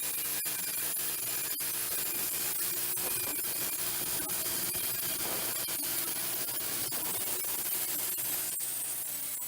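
Wood-Mizer band sawmill running, its blade cutting through a black walnut log: a steady hiss over a low hum, with scattered ticks.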